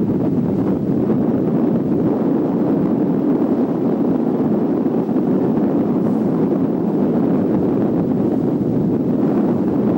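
A boat under way, making a steady low rushing noise, with wind buffeting the camcorder microphone.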